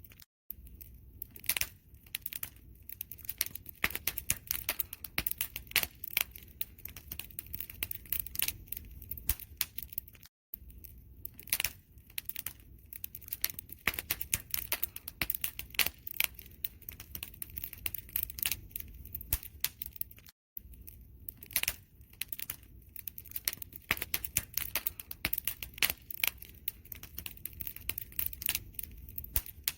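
Wood fire crackling: dense sharp pops and snaps over a low steady rumble, broken by a brief silent dropout three times, about ten seconds apart.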